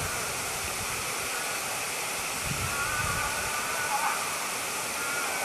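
A strange, faint, high drawn-out call, thought to be possibly an animal in distress. It sounds about midway, dips downward at its end, and comes again briefly near the end, over a steady rushing noise like running water.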